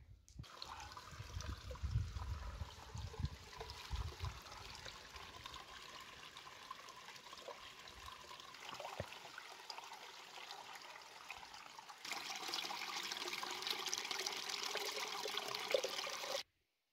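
Running water, a steady rushing hiss with some low thumps in the first few seconds; it turns suddenly louder and brighter about twelve seconds in, then cuts off just before the end.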